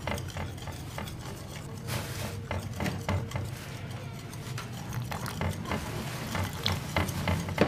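Metal wire whisk beating a semolina and gram-flour batter in a ceramic bowl, with irregular clicks of the wires against the bowl as water is worked in.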